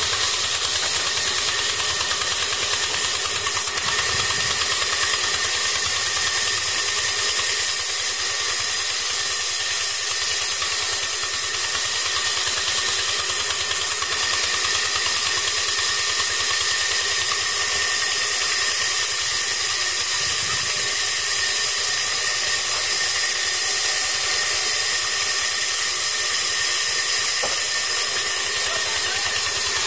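Large vertical band sawmill running, its blade cutting through a log slab fed along the table by hand: a steady, unbroken high-pitched hiss and whine.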